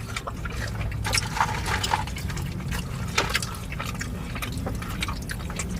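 Wet mouth sounds of eating close to the microphone: chewing and smacking, with a scatter of small clicks.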